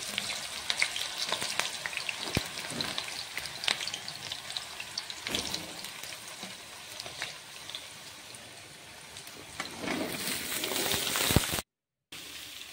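Cubed potato and kohlrabi sizzling and crackling in hot oil in a metal kadhai. The sizzling grows louder about ten seconds in, then cuts out briefly just before the end.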